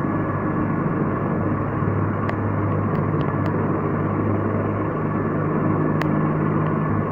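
Helicopter running while parked on the ground: a steady turbine-and-rotor drone with a strong low hum. A few faint clicks sound over it.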